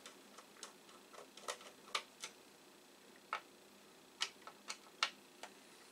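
Irregular light clicks and ticks of a screwdriver and fingers working on the underside of a plastic disk drive case as its drive screws are undone, about a dozen sharp, short clicks with no steady rhythm.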